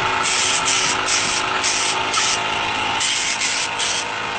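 A stiff paper sheet rubbed hard back and forth over a man's face and hair, making scratchy strokes about three a second, with a short break about halfway through.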